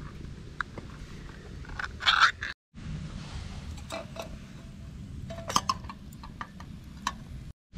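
A food tin's lid being peeled open, with a short, loud metallic tearing scrape about two seconds in. Later, scattered light clinks of metal on metal as the tin's contents are shaken out onto a small aluminium cooker lid.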